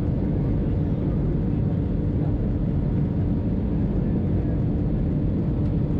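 Cabin noise of an Airbus A320-214 on final approach just before touchdown: the steady low rumble of airflow and its CFM56 engines heard from a seat over the wing, with a steady hum running through it.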